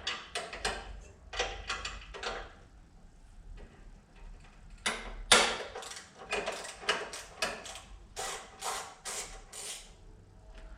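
Irregular metallic clicks, scrapes and rattles of small parts and hand tools being handled while the snug dash switch fittings are worked loose, with one sharper knock about five seconds in.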